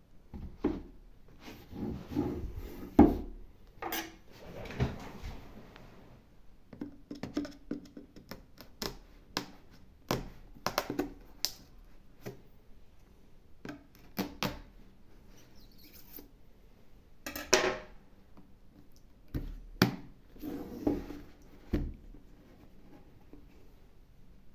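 Handling noises from unboxing a speaker: scattered knocks, scrapes and brief rustles of the box and its packaging, with one sharp knock about three seconds in.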